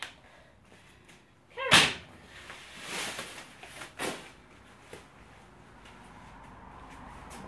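Workout gear being handled: a loud thud just under two seconds in, a rustling swish, then a second thud about four seconds in, as a sandbag is picked up and hefted for a carry.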